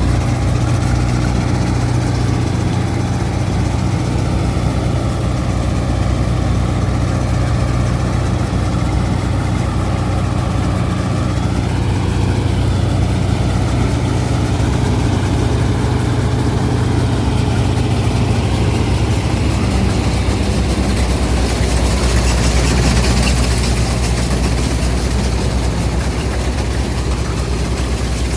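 Combine harvester's heavy diesel engine running steadily. About twenty seconds in, its drone drops lower and a rushing noise rises for a few seconds.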